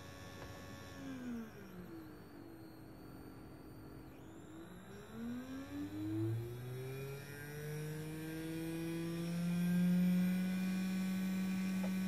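Small brushed DC motor on a PWM speed controller, whining. Its pitch falls about a second in as the speed knob is turned down, then rises again from about five seconds in and holds steady and louder at the higher speed.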